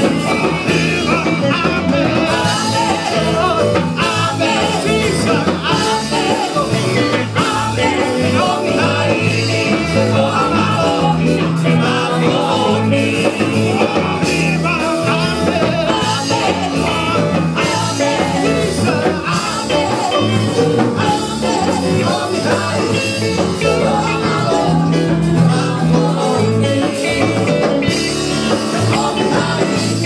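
Live praise and worship music: women's voices singing into microphones over a church band with acoustic guitar, heard through the PA.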